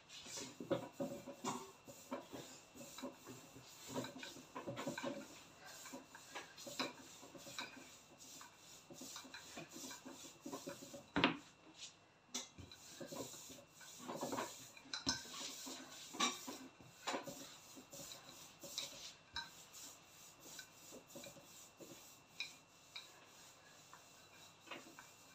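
Hands rubbing and working semolina makrout dough in a bowl: irregular grainy scraping and rubbing with scattered soft knocks against the bowl, and one sharper knock about eleven seconds in.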